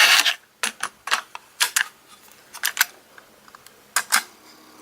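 A string of sharp plastic clicks and clacks, often in close pairs, from a cassette being handled and loaded into the drawer of an ADS/Braun Atelier C2 cassette deck and its controls being pressed. A faint steady hum starts near the end.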